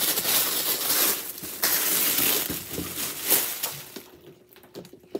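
Packaging wrap crinkling and rustling as a boxed figure is pulled out of its white wrapping, dense and loud for about four seconds, then dying down.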